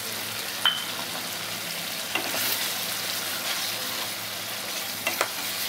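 Chicken pieces in a thick, reduced sesame-oil and tahini gravy sizzling steadily in a frying pan. A spatula stirs through it, with sharp clinks against the pan about half a second in and again near the end.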